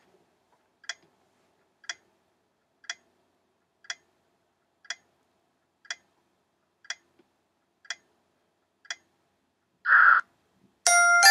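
Countdown timer sound effect ticking once a second, ten ticks in all. As time runs out there is a short noisy burst, then a bright ringing chime near the end.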